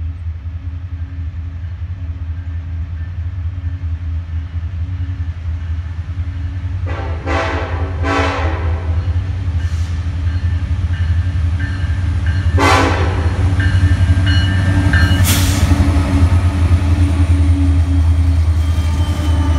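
Union Pacific diesel freight locomotives approaching and passing at the head of an intermodal train. The engines rumble steadily, growing louder as they near; the horn sounds several blasts from about seven seconds in, and the rolling noise of the train thickens near the end as the locomotives go by.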